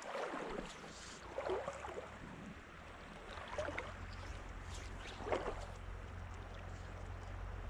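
Water splashing in four short, irregular bursts, over a faint hiss and a low steady rumble that comes in a few seconds in.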